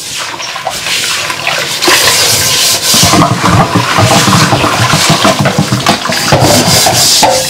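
Water running from a kitchen tap into a sink as a frying pan is washed under it, the flow getting louder about two seconds in.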